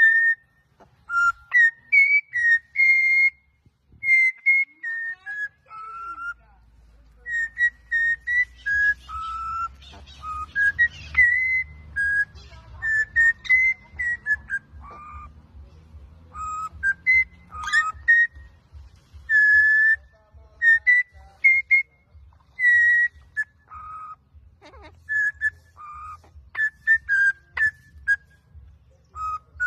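Male budgerigar whistling a long string of short, clear notes that glide up and down, in phrases with short pauses between them.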